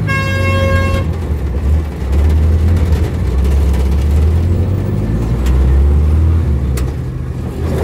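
Motor vehicle engine running with a loud, steady low hum. A horn sounds once near the start, a steady tone about a second long.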